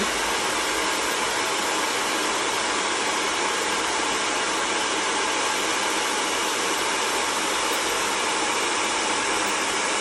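VS Sassoon hair dryer running steadily, blowing into the propped-open valve of an inflatable toy with a hand cupped around the nozzle as a seal, filling it with air.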